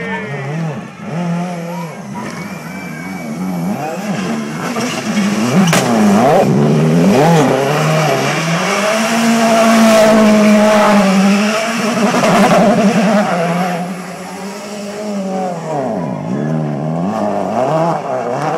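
Ford Focus WRC rally car's turbocharged four-cylinder engine revving hard, its pitch rising and falling again and again as the car spins doughnuts, with tyre squeal. Loudest in the middle of the stretch, easing off near the end.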